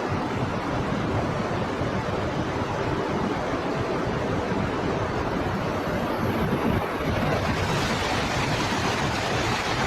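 Shinkansen bullet train rushing past at high speed through snow: a steady roar of air and blown snow that turns brighter and hissier about three quarters of the way through.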